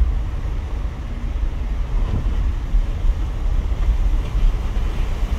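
Low, uneven rumble of a moving car heard from inside its cabin: road and engine noise.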